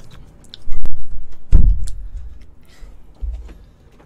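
Heavy, dull thuds as an office chair is lifted and knocked about on the floor: two loud ones about a second in, and a lighter one near the end.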